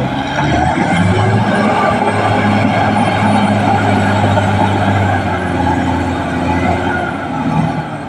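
Caterpillar D6R XL bulldozer's diesel engine running steadily under load, with the clatter of its steel tracks as it moves across the dirt cut.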